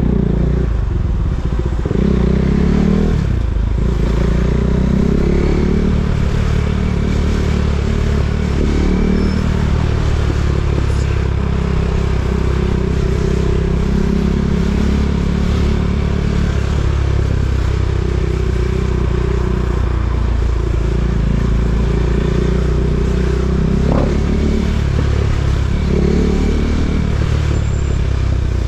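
KTM Duke 390's single-cylinder engine running at low revs in stop-and-go riding, with a few short rises and falls in revs.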